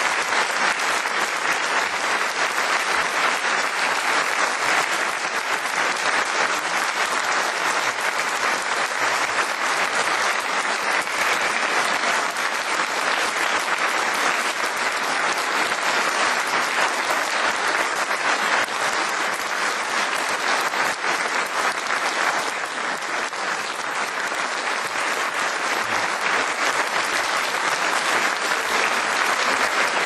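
Audience applauding: many hands clapping at once in a dense, steady patter that eases slightly about two-thirds of the way through.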